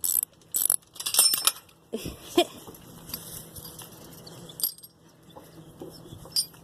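Metal lock and fittings on a kennel gate being worked loose: a run of short metallic rattling strokes, then a dog's brief whine about two seconds in, followed by quieter metal handling.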